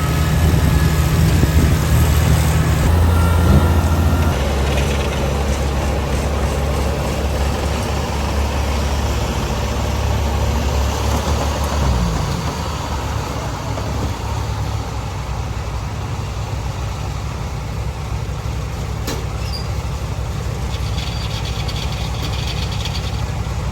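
Rice combine harvester's diesel engine running under load as it drives, with a loud, steady low hum. The hum is heaviest for about the first twelve seconds, then eases.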